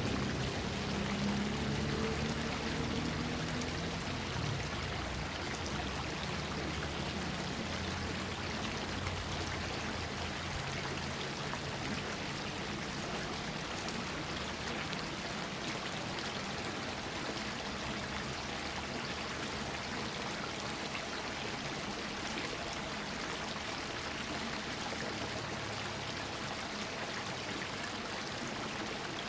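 Small stream flowing steadily, a continuous rush and trickle of water. A faint low hum sits under it for the first several seconds, then fades out.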